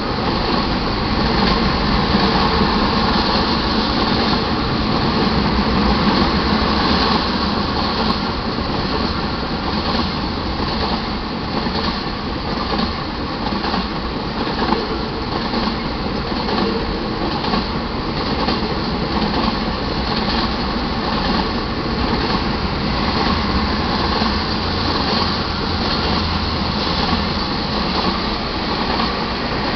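Freight train of tank cars rolling past at speed: a steady rumble and clatter of steel wheels on the rails.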